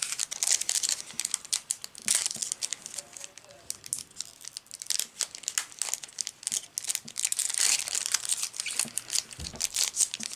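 Foil wrapper of a Yu-Gi-Oh booster pack crinkling and tearing in the hands as the pack is opened, an irregular run of sharp crackles throughout.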